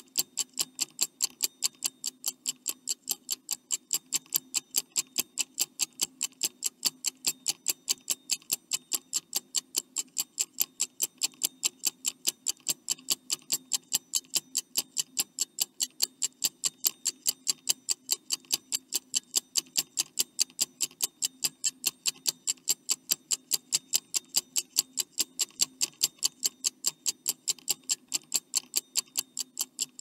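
Clock ticking sound effect: fast, perfectly even ticks, a few a second, over a faint steady low hum.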